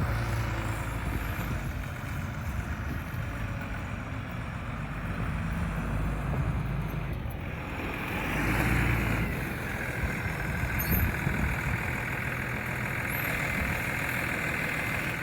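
Forklift engine running as it manoeuvres, getting louder for a second or so about eight seconds in.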